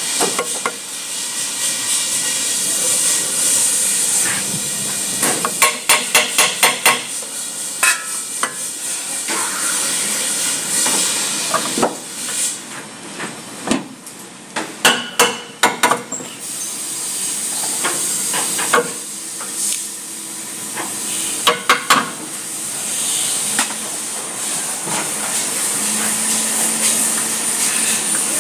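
Bursts of sharp metallic clicks, a few a second, as a hand wrench works the bolts of a car's lower control arm, over a steady hiss. The clicks come in three runs: around a quarter of the way in, about halfway, and again about three-quarters of the way through.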